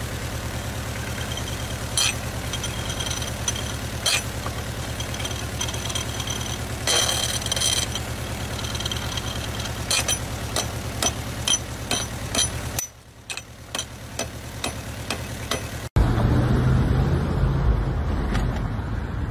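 Running vehicle engine with an axe blade striking and scraping a spinning pulley under the hood: sharp metal-on-metal clangs that ring, with a longer grinding scrape about seven seconds in and a quick run of strikes later. The engine hum cuts out about thirteen seconds in while a few more clicks follow, and then louder outdoor street noise takes over.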